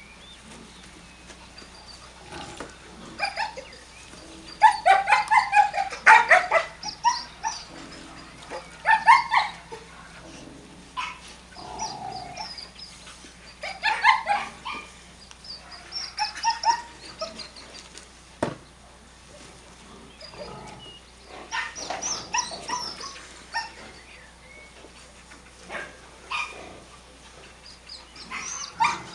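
Dogs barking in repeated short bursts, the loudest runs of barks coming a few seconds in and again around the ninth second.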